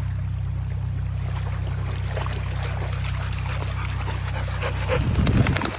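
A dog whining and whimpering, louder about five seconds in, over a steady low hum.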